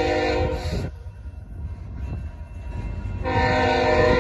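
A freight locomotive's air horn sounds a steady chord that cuts off about a second in and starts again near the end, over the continuous low rumble of loaded freight cars rolling past on the rails.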